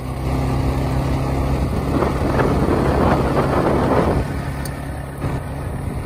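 Motorcycle engine running steadily while riding along a gravel road bed, with a rushing noise that swells about two seconds in and drops back about four seconds in.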